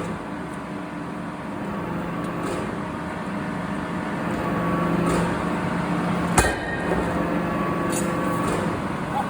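Heavy forging-shop machinery running with a steady, humming drone, with a single sharp metallic clank about six seconds in and a few lighter clicks.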